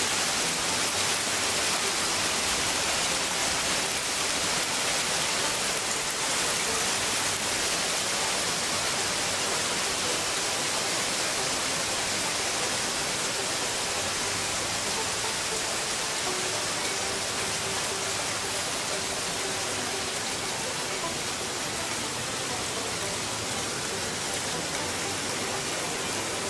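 Rain mixed with pea-size hail falling, a steady, even hiss.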